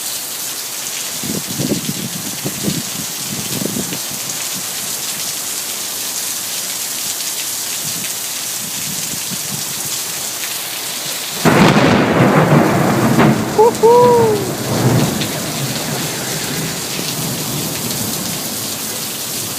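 Heavy rain pouring steadily. About eleven seconds in, a thunderclap from a close lightning strike crashes in suddenly and rumbles for a few seconds, the strike that knocks out the power.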